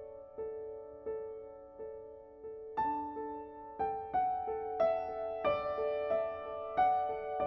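Background music: soft piano playing a gentle repeating figure, with louder, higher notes coming in about three seconds in.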